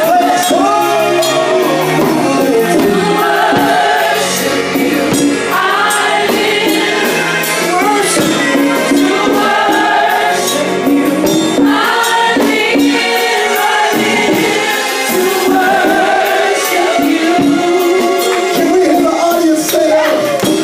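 Gospel worship music: voices singing with vibrato, choir-like, over a band with tambourine keeping the beat.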